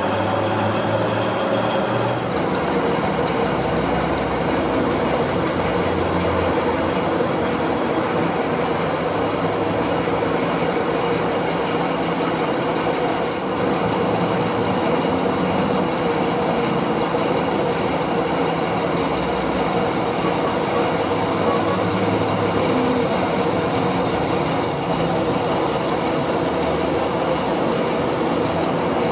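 Metal lathe running steadily while machining, a continuous mechanical whine over rattling cutting noise.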